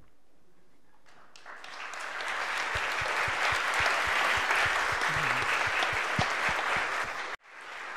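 Audience applauding. The clapping starts about a second and a half in, builds up, then cuts off abruptly near the end.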